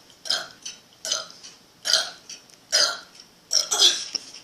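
Burps in quick succession, about five or six short ones each under a second apart, with a longer double burp near the end.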